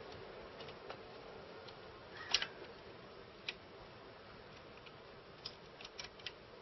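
Light, scattered clicks and taps of a screw and small parts being handled and fitted on a reel-to-reel tape deck, over a faint steady hiss. The loudest click comes a little past two seconds in, with a quick run of small clicks near the end.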